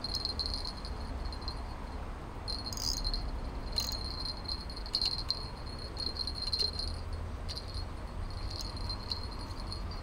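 Insects trilling in a high, pulsing buzz that comes and goes, over a steady low rumble, with a couple of sharp clicks about three and four seconds in.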